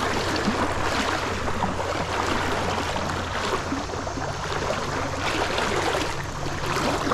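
Tailwater river current rushing steadily over rocks.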